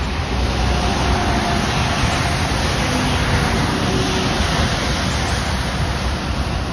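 Road traffic on rain-soaked pavement: tyres hissing through water, with low engine rumble, as a box truck and then a semi-trailer truck pass close by.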